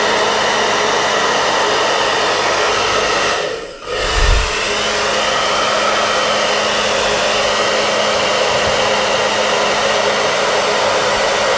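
Hair dryer running steadily with a motor hum, blowing air across wet acrylic pour paint to spread it. It cuts out briefly about four seconds in, then runs on.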